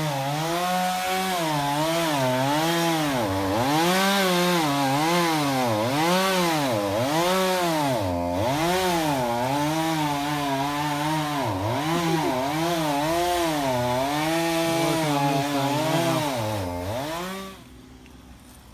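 Stump grinder's engine working under load as its cutter wheel grinds out a tree root, the pitch dipping and recovering about once a second as the wheel bites in. It cuts off sharply near the end.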